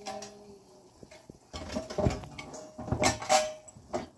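Glass pan lid and utensils clinking and knocking against a metal frying pan: quiet at first, then a series of sharp clinks with some brief ringing from about a second and a half in.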